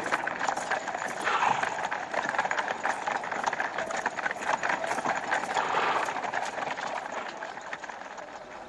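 Horses' hooves clip-clopping on stone paving, a quick run of clicks mixed with the footsteps of a walking crowd; the clatter eases off near the end.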